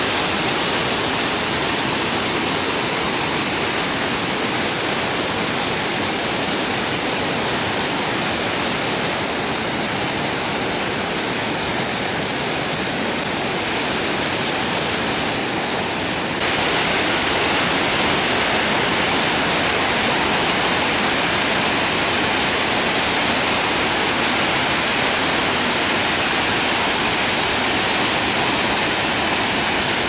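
Dzhuryn waterfall: water pouring over a wide rock ledge and rushing through the rapids below, a steady, dense rush. It gets a little louder about halfway through.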